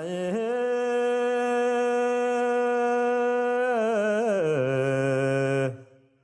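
A single voice chanting in one long, steadily held tone, with a short wavering turn about four seconds in before settling slightly lower and stopping just before the end: a Tibetan Buddhist mantra chant.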